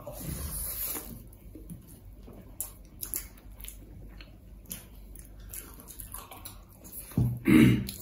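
Eating sounds of rice and curry being eaten by hand: wet squishing as fistfuls of rice are mixed and pressed, chewing and lip smacking, with small clicks. A short, loud throat sound from one of the eaters near the end.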